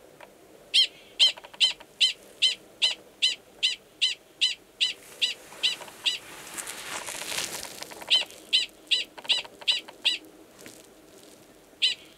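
Male Gunnison's prairie dog giving his mating call: a rapid series of short, high barks, about two and a half a second, in a long run, then after a pause a second shorter run and a few more near the end. It is the call a male gives near an estrous female's burrow before going down to mate, and it sounds identical to the species' alarm call.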